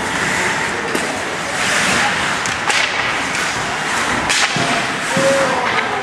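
Ice hockey play: skate blades scraping the ice with several sharp clacks of sticks and puck, and a drawn-out falling call from a player about five seconds in.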